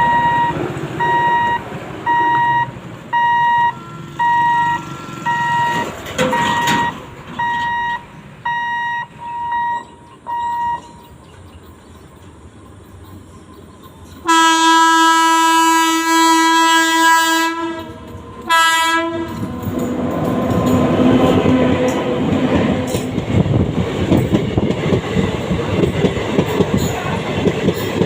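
Electronic warning beeps about once a second that stop about eleven seconds in. Then a train horn sounds one long, loud blast of about three seconds followed by a short one, and the train passes with its wheels clacking rhythmically over the rail joints, growing louder.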